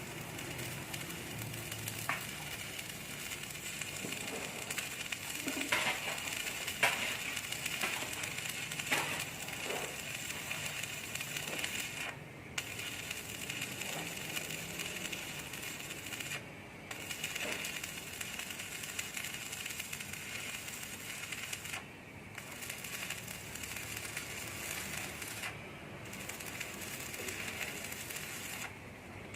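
Electric arc welding on an IWF250 steel wide-flange beam: a steady crackling sizzle of the arc, which breaks off for a moment several times and strikes again, with a few sharper crackles early on.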